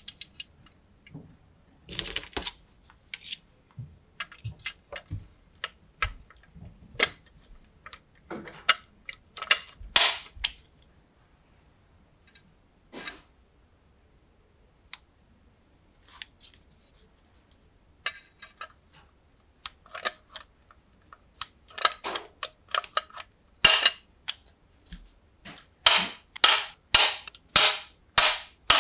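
Small metal clicks and taps as rivets and a bracket are fitted to a lantern's metal base, then an Autlead hand rivet gun is squeezed repeatedly on the bracket: a quick run of about six sharp clicks roughly half a second apart near the end.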